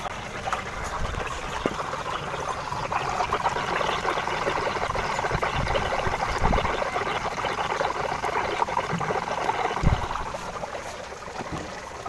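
Flushing agent and pressure blowing out of a hose end held under water in a bucket, bubbling steadily, as R-141b is pushed through a refrigerator's sealed system to drive out dirt and oil.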